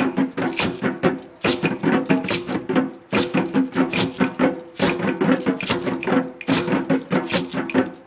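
Djembe drumming: quick hand strikes in repeating phrases, each broken by a short pause about every second and a half to two seconds.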